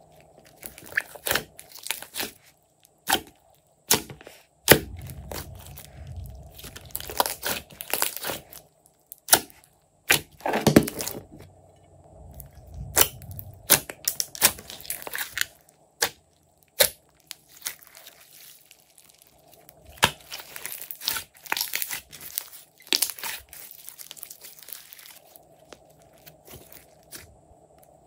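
Glossy slime being stretched, squeezed and kneaded by hand, giving off irregular sharp crackling pops between softer squelching, quieter for the last few seconds.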